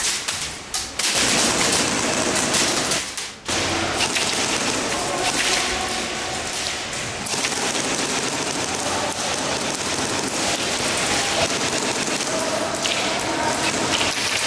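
Airsoft guns firing in rapid, near-continuous volleys, with a short lull about three seconds in.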